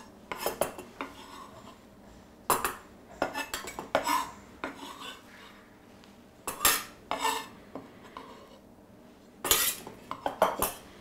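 Kitchen knife chopping ham on a wooden cutting board in four short bursts of quick strokes. The blade also scrapes the chopped pieces off the board into a metal bowl.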